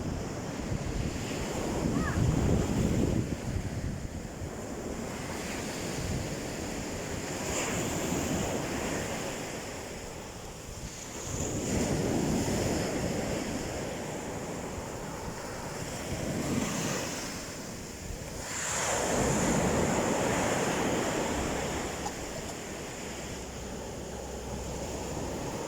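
Sea waves breaking and washing onto the shore, rising and falling in slow surges several seconds apart, with wind on the microphone.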